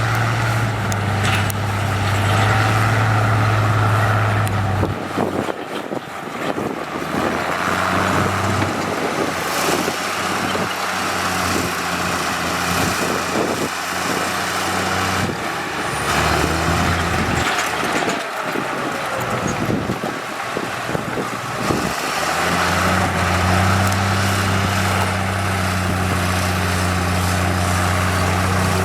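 Heavy diesel construction machinery running, a low steady engine drone over the rumble and clatter of work; the drone drops away and comes back several times.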